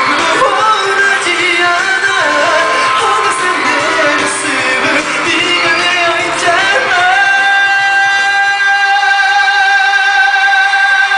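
Live pop music with male singing over an arena sound system, heard from the audience. About seven seconds in, the music settles into one long held note.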